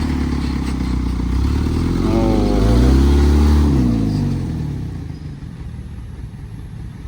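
A heavy truck's engine passes by, its pitch rising and then falling while it is loudest about three seconds in, then fading away. Under it runs a steady engine.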